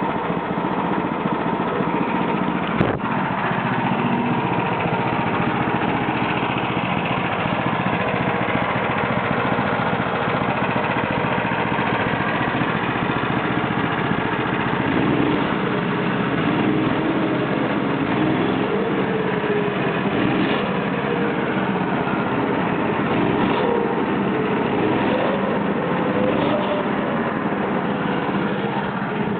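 The 13 HP gasoline engine of a homemade band sawmill runs steadily, with a single sharp click about three seconds in.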